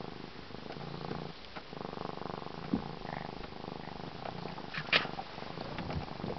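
African serval kitten purring steadily, a fine rapid rumble, while being stroked. Two short sharp clicks cut through, one near the middle and a louder one about five seconds in.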